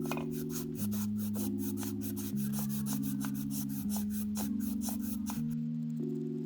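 1000-grit sandpaper rasping back and forth in quick, even strokes on a crankshaft rod bearing journal, over background music of slowly changing sustained chords. The rasping stops about five and a half seconds in while the music goes on.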